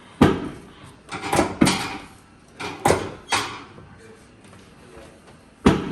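Chiropractic drop table, its padded sections dropping under the chiropractor's thrusts during a drop-technique adjustment: six sharp clacks at uneven intervals, two of them close together about a second and a half in.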